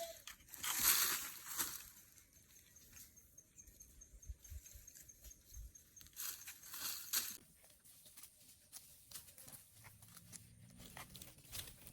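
Goats tearing and chewing foliage: crunching and rustling, louder twice (about a second in and around seven seconds), with a run of small quick crunches near the end.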